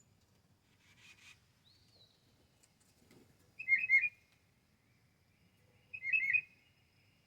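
A songbird singing two short phrases of quick whistled notes, about two seconds apart, with a fainter chirp and a brief whistle before them.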